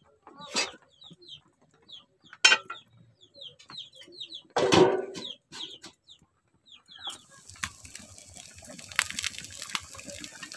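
Chickens clucking, with chicks cheeping in short high peeps and a louder call about halfway through. About two-thirds of the way in, curry in an aluminium kadai starts to sizzle and bubble with a steady hiss and crackle.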